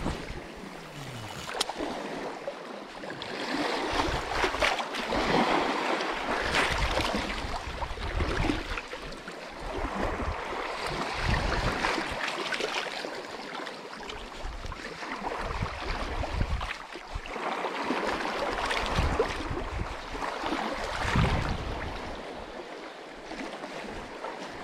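Small sea waves washing in over a stony shoreline, swelling and ebbing every couple of seconds, with gusts of wind rumbling on the microphone at times.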